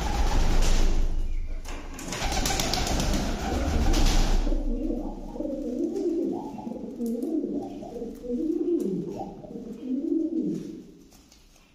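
Domestic pigeons cooing, a low wavering coo repeated over and over, fading out near the end. For the first four seconds or so a loud rushing noise with a deep rumble covers them.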